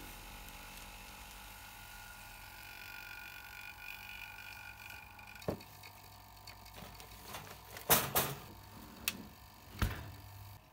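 Handling knocks and clatter from an oven's wire rack and door as a vacuum-bagged sheet is slid in. There are a few sharp knocks, loudest as two close together about eight seconds in, and a last one near the end as the door is taken in hand.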